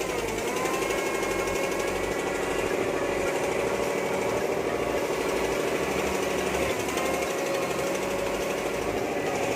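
Hitachi UH07 excavator's diesel engine running steadily with a fast, even chatter, its pitch dipping briefly twice, about half a second and about seven seconds in.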